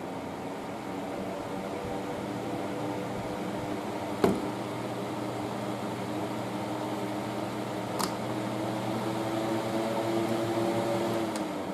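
A 2010 Polar Wind 10-inch plastic box fan running steadily, its hum slowly growing louder and rising in pitch as it speeds up. There are two sharp clicks about four and eight seconds in, and near the end the hum begins to drop.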